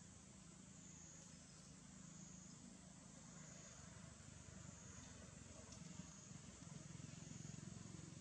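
Near silence: a faint, high insect drone that swells and fades about once a second, over a low hum.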